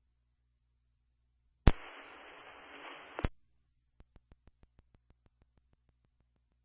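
Fire department radio channel on a scanner feed keyed up with no voice: a click, about a second and a half of radio static hiss, and another click as it drops. A couple of seconds in after that comes a quick run of faint clicks, about six a second, fading away.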